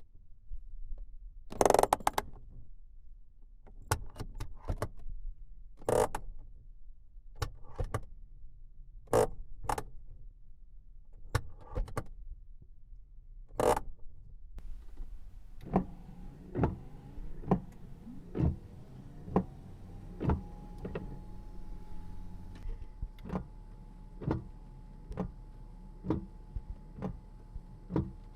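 Controls and fittings of a 1990 Volvo 240 being worked: a dozen separate sharp clicks and knocks with pauses between. About halfway through a low hum comes on, with an even click about once a second and a steady tone that rises and then holds.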